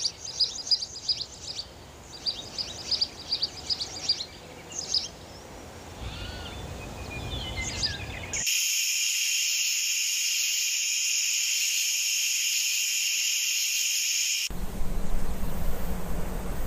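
Small songbirds chirping in rapid high trills, then a steady, high insect buzz that starts abruptly about eight seconds in and cuts off about six seconds later, followed by a rushing noise.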